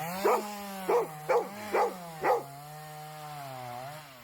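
A chainsaw engine runs steadily, its pitch rising and falling, while a dog barks five times in the first half.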